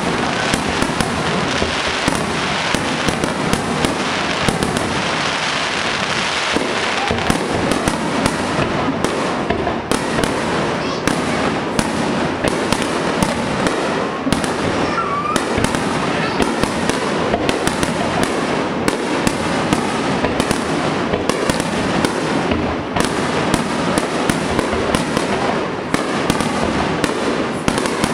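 Fireworks display: a dense, unbroken barrage of shell bursts and crackle, many bangs a second at a steady loudness.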